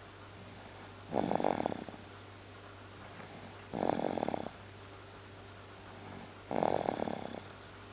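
Snoring in slow, regular breaths: three rattly snores, each a little over half a second long, coming about every two and a half to three seconds.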